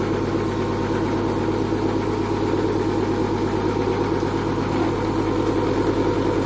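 Small household electric grain mill, about thirty years old, running steadily with an even motor hum while grinding glutinous yellow millet.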